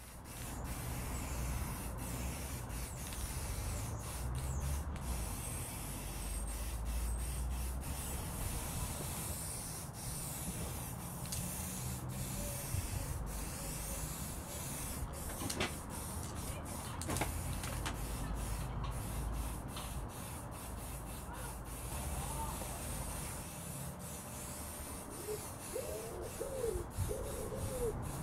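Aerosol spray can hissing steadily as white top-coat paint is sprayed over a car bonnet, with a low rumble underneath and a few faint clicks.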